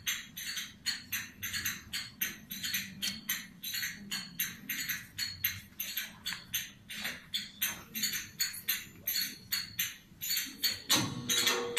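Jingling metallic percussion beating a steady rhythm of about three strokes a second, like a tambourine's jingles, as the introduction to folk dance music. A melody comes in near the end.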